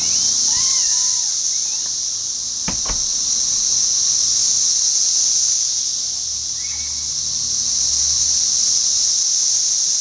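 A loud chorus of 13-year periodical cicadas: a dense, steady high-pitched drone that swells and fades slowly. There is a single brief knock about three seconds in.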